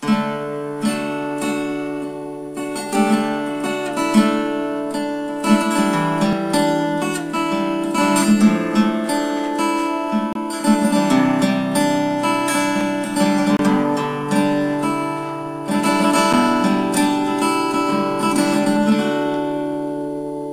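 Instrumental music with a plucked and strummed acoustic guitar, fading out near the end.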